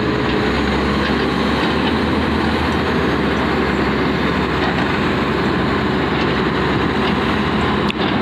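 Tata Hitachi ZX470 hydraulic excavator's diesel engine running steadily under load, a continuous heavy machinery rumble as it loads soil into a tipper truck.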